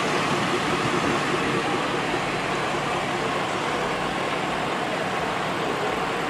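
Steady engine noise of motor vehicles running, without any single sudden event.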